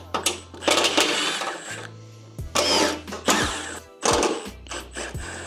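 Small power tool whirring in about three short bursts while unfastening the footpegs, over background music with a steady bass.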